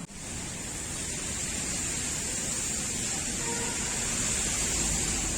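Steady hiss of falling rain, growing slightly louder toward the end.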